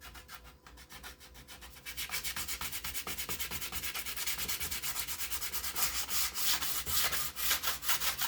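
Sheet styrene plastic being sanded by hand with quick, even back-and-forth strokes to level its edge. The strokes get louder about two seconds in.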